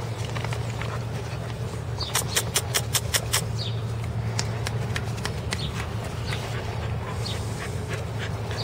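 Dogo Argentino puppies playing and wrestling on grass, with scuffling and a quick run of about seven sharp clicks two to three seconds in, over a steady low hum.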